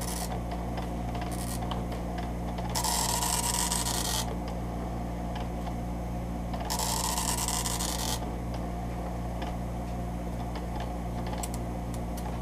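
Epson MX-80 III dot matrix printer's nine-pin print head printing two lines. Each pass is a dense buzzing rasp of about a second and a half: one about three seconds in and one about seven seconds in. A steady low hum runs underneath.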